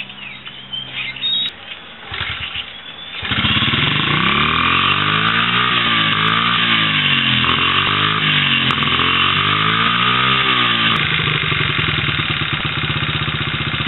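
Honda XR50's 49cc single-cylinder four-stroke engine, freshly rebuilt and on choke, fires up about three seconds in. It is revved up and down repeatedly, then settles into a steady idle about eleven seconds in.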